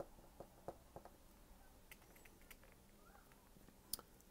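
Faint, scattered ticks and taps of a stylus nib on a pen-display tablet screen as words are handwritten, with the sharpest click near the end.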